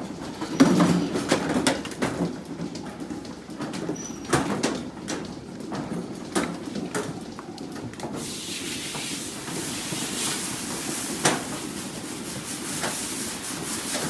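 Milking-parlour noise: a low machinery hum with irregular clanks and knocks from the metal stall equipment and milking units. About eight seconds in, a steady hiss of water spraying from a hose begins.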